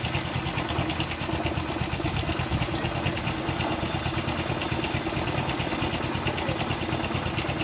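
Hero Honda motorcycle's single-cylinder four-stroke engine running steadily at idle with an even, rapid beat. It is running on brown gas (hydrogen-oxygen) from a potassium hydroxide electrolysis cell fed into the carburettor, with the petrol supply disconnected.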